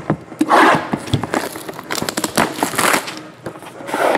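Trading card boxes and packs handled by hand, with cardboard sliding and scraping, several bursts of rustling and crinkling, and scattered sharp clicks.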